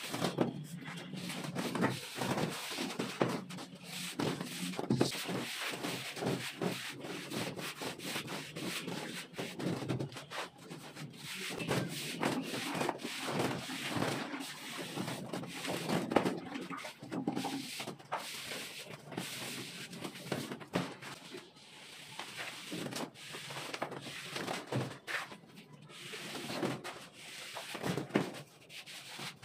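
A straightedge rule scraped repeatedly across fresh cement-and-sand plaster on a ceiling. It makes irregular short scraping strokes as the wet plaster is levelled.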